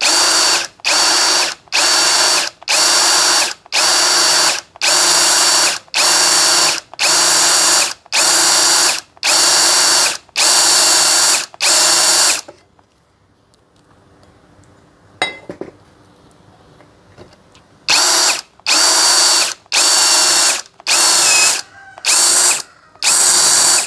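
Cordless brushless drill (DCK KDJZ03-13) boring a metal bit through thick steel plate, its trigger pulsed in short bursts of motor whine roughly one a second to keep the bit from overheating. The bursts stop for about five seconds in the middle, with a single click, then start again near the end.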